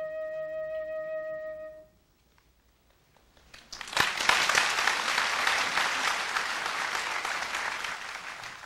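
A sustained musical chord held and then released, a short silence, then audience applause breaking out and carrying on.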